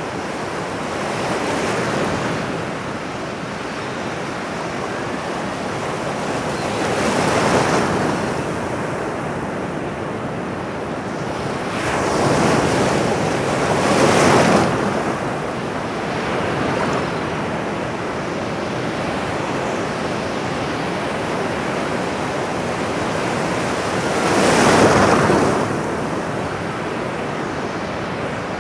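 Ocean surf: a steady wash of water, with waves swelling and breaking several times, the loudest about halfway through and again near the end.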